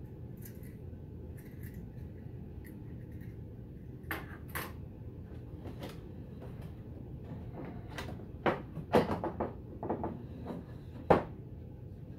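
Clunks and knocks from handling a wooden gingerbread clock case on a wooden table: a few light clicks, a couple of knocks, then a quick run of louder wooden knocks from about eight seconds in, the loudest near the end.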